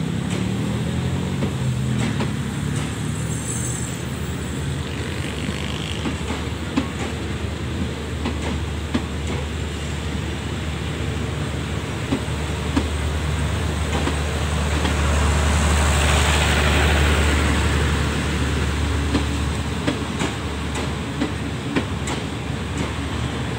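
Passenger train coaches rolling slowly past the platform: a steady low rumble with scattered clicks of the wheels over the rail joints, swelling louder about two-thirds of the way through.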